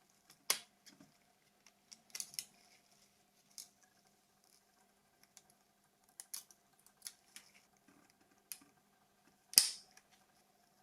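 Small plastic clicks and snaps from a Nokia 2760 flip phone's shell being pried apart, scattered through, with one sharp snap near the end.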